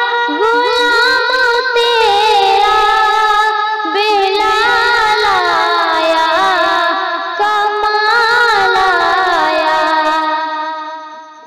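A woman's voice singing a naat, a devotional Urdu song in praise of the Prophet, in long, ornamented held notes that slide between pitches, fading out near the end.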